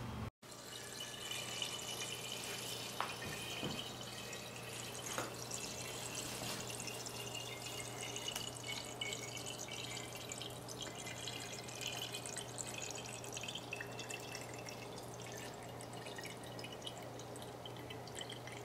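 Water swirling in a vortex down through a homemade tornado tube, draining from one 2-liter pop bottle into the other with a steady trickle and scattered drips. The sound drops out briefly just after the start, then the trickling carries on with a faint steady hum under it.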